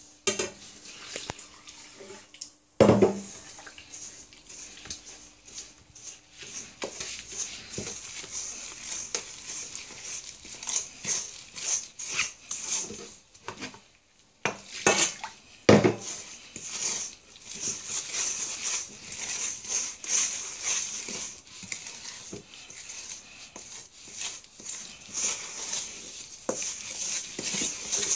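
Wooden spoon stirring and scraping flour and water into a stiff, shaggy bread dough in a stainless steel mixing bowl: quick, rhythmic scraping strokes, with two loud knocks against the bowl, about three seconds in and again about sixteen seconds in.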